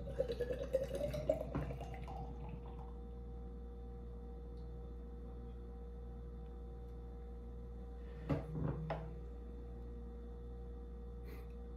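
Beer poured from a can into a glass mug, splashing and glugging with a pitch that rises as the glass fills over the first couple of seconds, then going quiet over a steady low hum. A couple of short knocks come about eight seconds in.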